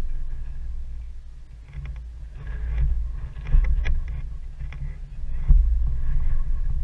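Wind buffeting the camera's microphone: a low, uneven rumble that swells in gusts, strongest about three and a half and five and a half seconds in.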